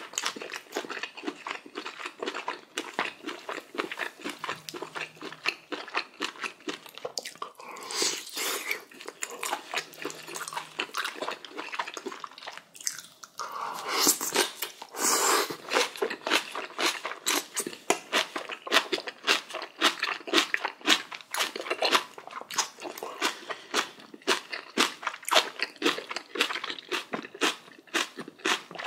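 A person chewing crunchy kimchi close to the microphone: a continuous run of wet crunches, with two louder, noisier stretches about eight and fourteen seconds in.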